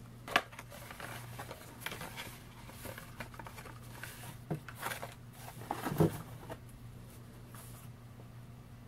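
Cardboard candy box being opened by hand: scattered soft clicks, scrapes and rustles of the flaps and packaging, with a sharper knock about six seconds in.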